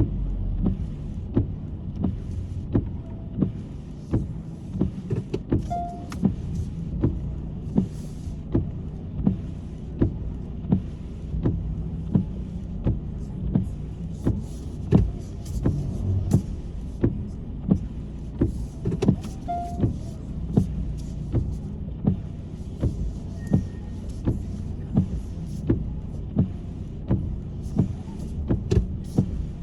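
Inside a moving car in the rain: a steady engine and road hum, with windshield wipers knocking at an even pace about every three-quarters of a second.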